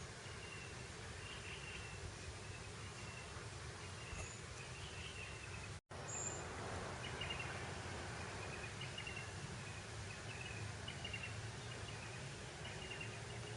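Steady breeze over open grassland, a soft rushing with a low rumble underneath, threaded with short, repeated high chirps. The sound cuts out completely for an instant about six seconds in.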